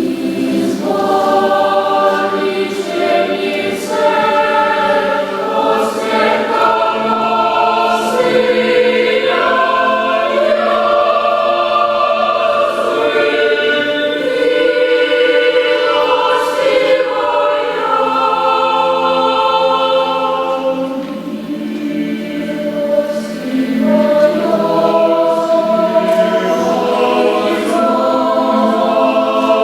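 Mixed a cappella vocal ensemble singing an Orthodox troparion to the Mother of God, with voices holding chords in several-part harmony. A short dip about two-thirds through marks a break between phrases.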